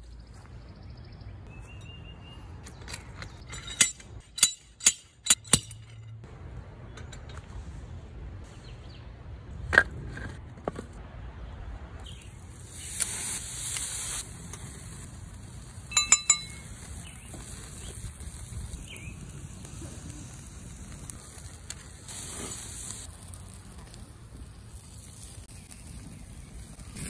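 Metal grilling tools handled on a fire-pit grill grate: a quick run of about five sharp clicks, later a single knock and a ringing metallic clink, over a steady low background noise.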